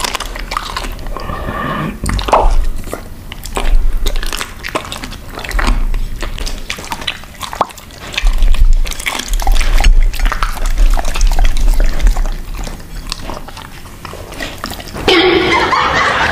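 An Alaskan Malamute chewing raw poultry pieces close to the microphone: wet biting with repeated crunches, over background music.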